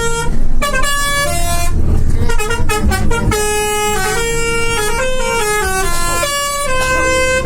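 Bus telolet horn, a multi-tone air horn, playing a tune of short held notes that jump from pitch to pitch, over the low running of the bus engine.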